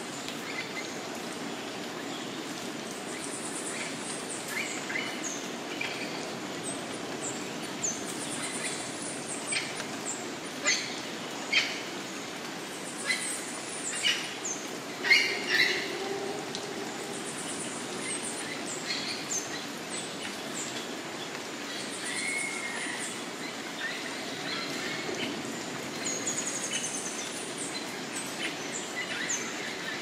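Tropical forest birds calling over a steady background hiss. A high call repeats every four or five seconds, and a run of short, sharp chirps about a third to halfway through is the loudest part.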